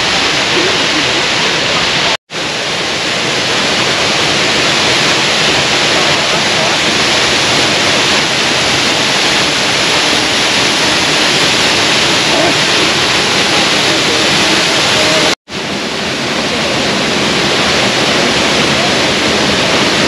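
Ripaljka waterfall on the Gradašnica river pouring into its plunge pool: a loud, steady rush of falling water, broken briefly twice.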